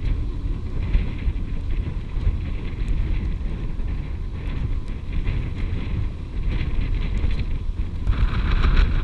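Wind buffeting the microphone aboard a catamaran under way, over a steady low rumble of the boat's motor and water, with a patchy hiss that grows stronger near the end.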